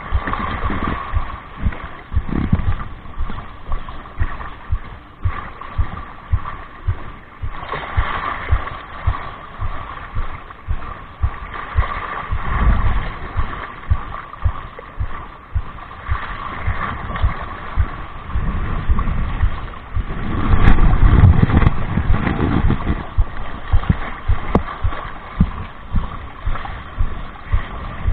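Wind buffeting the microphone in irregular gusts, strongest about two-thirds of the way through, over lapping water and a faint steady hum.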